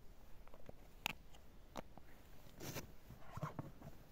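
Scattered light clicks and rustles of small fishing gear and clothing being handled, a few sharp ticks spread about a second apart.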